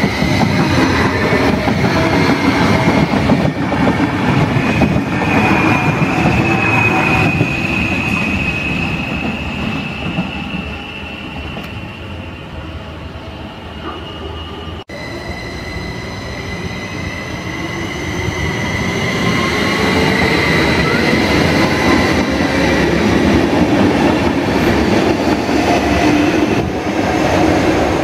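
SBB RABe 514 double-deck electric S-Bahn trains running on the rails, with wheel-on-rail noise and a high steady whine. The first pass is loud at the start and fades after about ten seconds. After a sudden cut midway, another train builds up louder again, with a whine that rises slightly in pitch.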